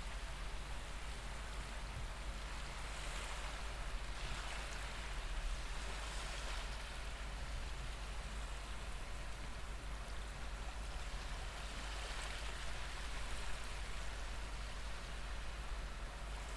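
Recorded ocean waves washing in a steady hiss that swells and ebbs every few seconds.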